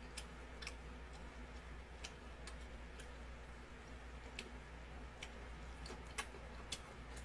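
Faint chewing of a mouthful of seafood ramen: soft, short clicks at irregular intervals, about one or two a second, over a low steady hum.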